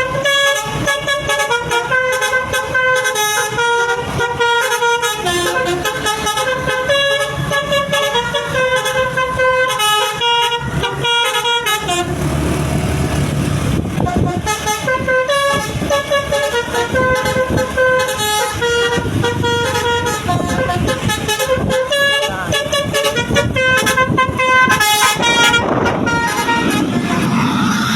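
Bus telolet horn (Basuri-type multi-tone air horn) playing a tune of stepped notes, broken about twelve seconds in by a couple of seconds of engine and road rumble, then playing on.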